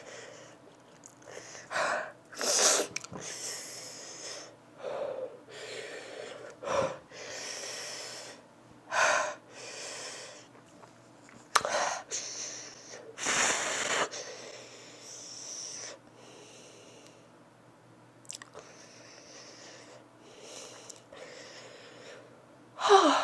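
A woman breathing hard and hissing air in and out through her mouth, a sharp breath every second or two, quieter for a while before a louder one near the end: panting against the burn of an extremely hot chili-coated 'death nut'.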